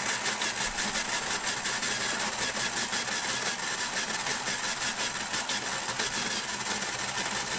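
Nostalgia Retro Snow Cone Maker running: its electric motor turns the blade that shaves ice cubes, a steady grinding noise with a fast, even rattle.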